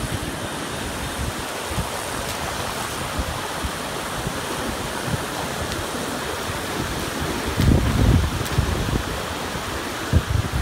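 Ocean surf breaking and washing up over a sandy beach in a steady rushing wash, with wind buffeting the microphone in low gusts about three-quarters of the way through and again near the end.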